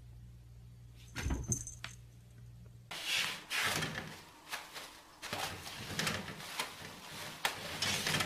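A cat's paws knocking on a sliding closet door: a thump with a few clicks about a second in. From about three seconds in there is a busy run of rustling and light knocks.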